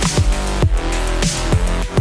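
Background electronic music with a heavy, steady beat and deep bass, in a dubstep style.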